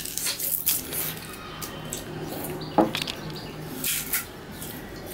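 Sugar cane being bitten and chewed: the rind is torn off with the teeth and the fibrous stalk crunches and crackles in irregular bursts. A short pitched squeak comes about three seconds in.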